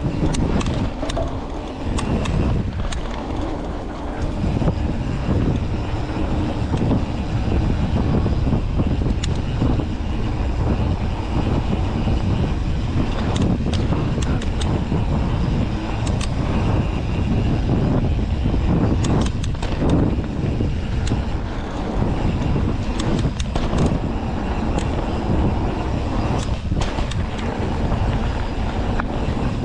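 Mountain bike riding a dirt trail: steady rumble of tyres and wind rush on the GoPro's microphone, with scattered clicks and knocks from the bike rattling over rough ground.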